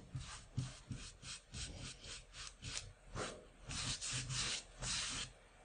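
Decorating brush stroking wet gesso onto the side edge of a stretched canvas, a dry scratchy rubbing: quick short strokes, then longer sweeps in the second half.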